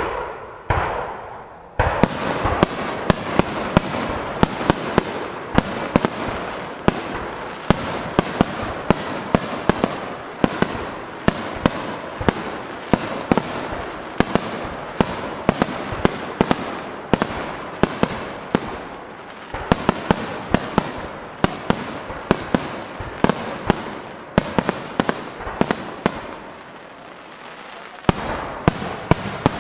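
Starmine fireworks barrage: aerial shells bursting in rapid succession, about two or three sharp bangs a second over a dense crackle. It eases off briefly near the end, then picks up again.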